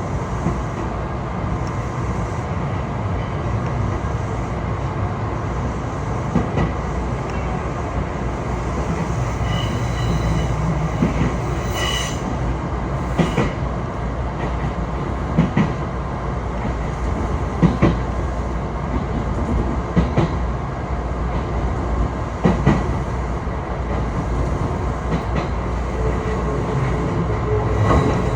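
Passenger train running along the track: a steady rumble with sharp clicks of the wheels over rail joints every couple of seconds, and a brief thin wheel squeal about ten to twelve seconds in.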